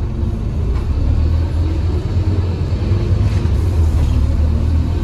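Scania OmniCity N230UD double-decker bus driving along, heard from inside the lower deck: its diesel engine and drivetrain give a steady low rumble with road noise, rising slightly about a second in.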